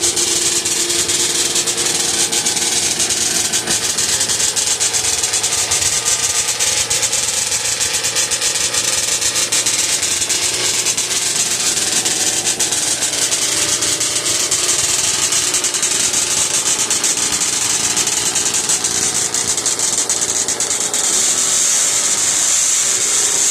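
A 1978 Ski-Doo Blizzard SS 440 snowmobile's two-stroke engine running steadily at idle.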